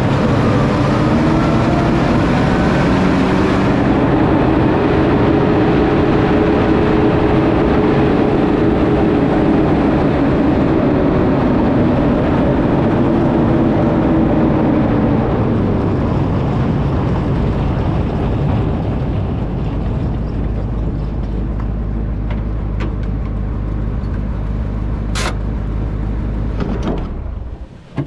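A 1941 Universal Carrier (Bren gun carrier) on the move, its Ford flathead V8 engine running under the clatter of its steel tracks, with a whine that rises and falls through the first fifteen seconds. It then settles to a lower steady rumble, and after a sharp clank near the end the noise drops away as the carrier stops.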